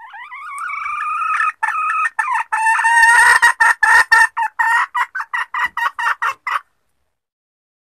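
Junglefowl hen calling: a drawn-out note that swells for about a second and a half, then a run of quick short clucks that slowly spread out. It is a hen lure call used to draw in male junglefowl.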